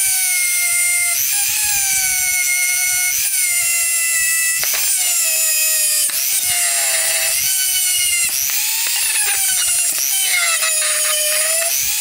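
Handheld rotary tool with a polishing wheel, running with a high whine on the metal arms of a drawing compass. The pitch sags each time the wheel is pressed onto the metal and climbs back as the pressure eases, several times over.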